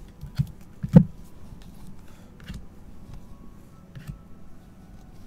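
Panini Mosaic soccer cards being handled by gloved hands: small clicks and rustles of card stock as they are flipped, with a sharp tap about a second in.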